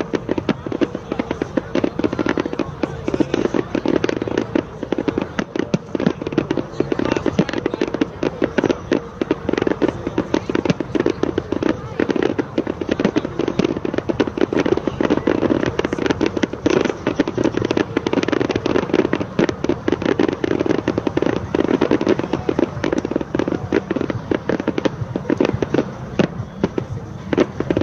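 Fireworks display going off in a rapid, continuous barrage of bangs and crackling reports, many per second with no pause.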